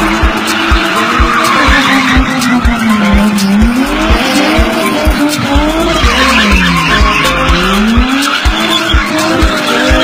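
BMW sedan spinning in tight circles, its engine held high in the revs with the tyres skidding and squealing; the engine note dips and climbs back twice. Music with a steady thumping beat plays over it.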